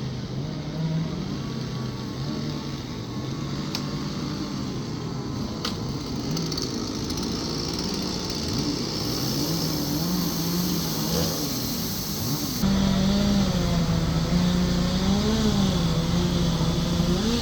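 Chainsaws running and revving, their engine pitch stepping up and down as they cut. About two-thirds of the way through the sound changes abruptly and gets louder.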